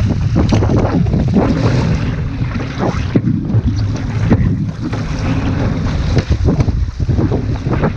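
Heavy wind buffeting the microphone over water rushing and splashing against an outrigger canoe as it is paddled through choppy ocean, with irregular splashes from the hull, the ama and the paddle strokes.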